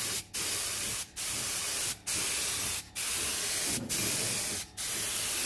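Air-powered gravity-feed paint spray gun hissing as it sprays paint. The hiss breaks off briefly about once a second as the trigger is released between passes.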